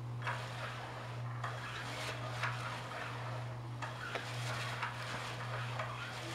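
Battery-powered cat toy whose motor spins a wand under a nylon cover: a steady low hum, with irregular scratchy rustles and clicks as the wand drags beneath the fabric.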